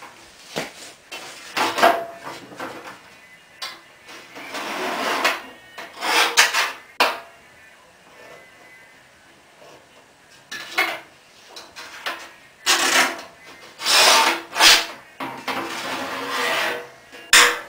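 A steel scribe scratching along sheet metal as a patch panel is traced around on a 1963 Chevy C-10 pickup's lower fender, with the loose panel rubbing and knocking against the body in irregular bursts. There is a quieter stretch about halfway through.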